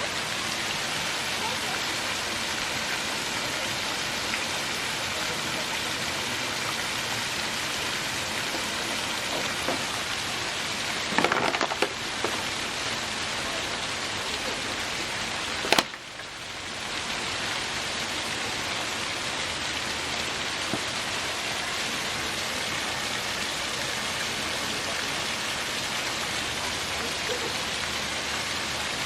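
Steady hiss of falling water. A short cluster of knocks comes about eleven seconds in, and a sharp crack about sixteen seconds in, after which the water noise drops briefly and swells back.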